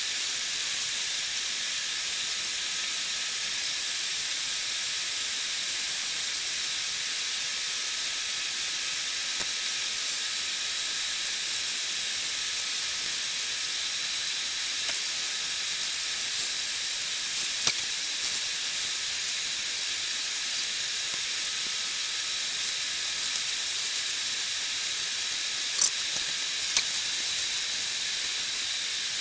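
Steady high-pitched hiss of airliner cabin noise, with a faint steady whine running through it and a few light clicks, the sharpest near the end.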